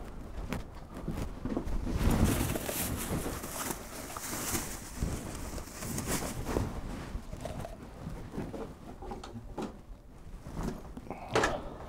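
Outdoor garden ambience with a pigeon cooing and scattered small rustles and clicks.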